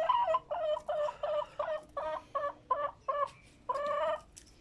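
Chickens clucking: a quick run of short calls, about three a second, with a longer call near the end.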